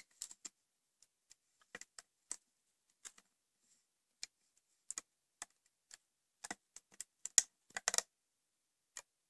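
Irregular small clicks and taps of a metal crochet hook against the plastic pegs of a Rainbow Loom and the rubber bands on them as the bands are hooked, coming thicker near the end.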